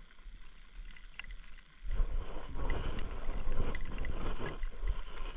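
Wind buffeting the microphone in gusts, starting about two seconds in as a loud, uneven rumbling rush.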